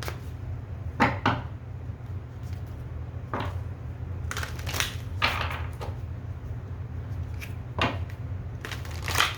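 Cards being handled on a table: a few short taps and knocks, with a longer sliding rustle about halfway through, over a steady low hum.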